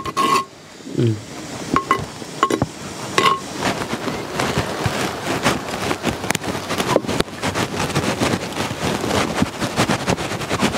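A spoon clinks against a cooking pot a few times, then a dense, continuous scraping and crackling as thick prawn curry is scraped out of a pan onto a layer of rice in a clay pot, layering a dum biryani.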